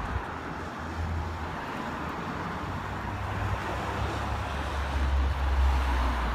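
Wind rumbling on the microphone over a steady hiss of road traffic, the rumble growing heavier near the end.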